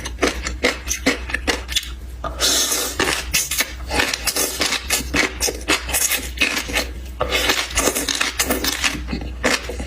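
Close-up eating sounds: utensils clicking and scraping against dishes over and over, with longer noisy stretches of eating between the clicks, over a steady low hum.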